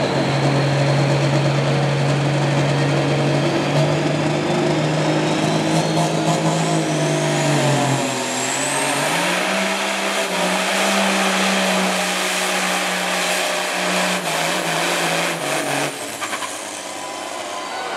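Diesel semi truck engine working hard under heavy load as the rig pulls a weight-transfer sled. The engine note runs steady, then climbs about eight seconds in while a high whine rises, and it eases off near the end.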